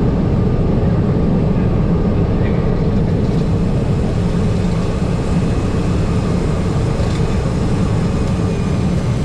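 Cessna 208B Caravan's single turboprop engine and propeller running with a steady, even drone.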